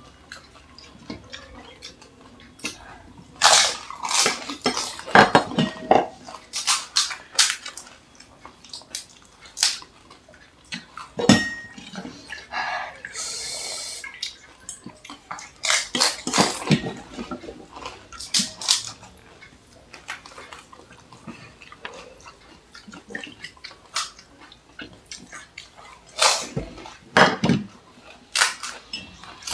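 Pani puri being eaten close to the microphone: crisp hollow puri shells cracked open and crunched, with spiced water dripping and splashing and a steel bowl clinking. Short sharp crackles come in clusters, the loudest a few seconds in, around the middle, and near the end.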